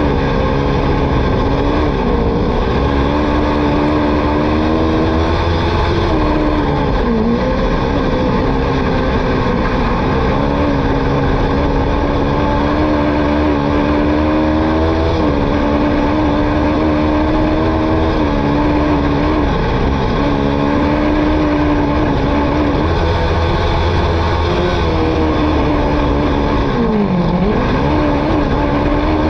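Autocross race car engine held at high revs, with brief drops in pitch a few times, the deepest near the end, before it climbs again. A low rumble runs underneath.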